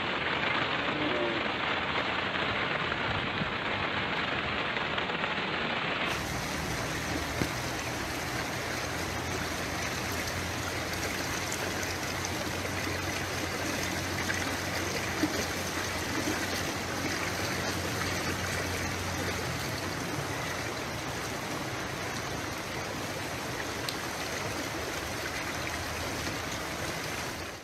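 Steady rushing noise of heavy rain and fast-flowing muddy floodwater. The character of the noise changes abruptly about six seconds in.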